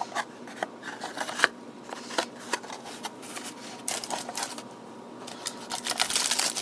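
Hands handling the radio kit's small parts and packaging: a run of light clicks, taps and rustling, busier near the end.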